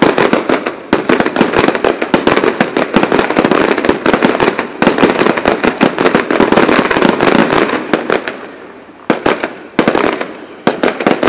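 Fireworks display: a dense barrage of rapid bangs and crackles that thins out about eight seconds in, then several more separate sharp bangs near the end.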